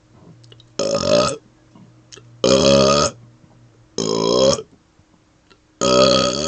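A man burping on purpose: four long, pitched burps in a row, each about half a second, coming about every one and a half seconds.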